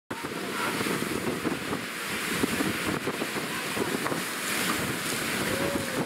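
Wind buffeting the microphone on a cruise ship's open deck: a steady rushing noise with uneven, rumbling gusts.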